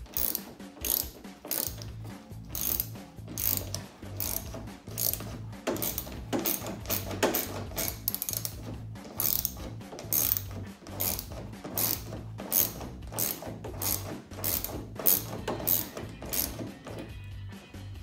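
Hand ratchet clicking in quick, even strokes, about two or three clicks a second, as it loosens a spoiler mounting nut on the underside of a car's trunk lid.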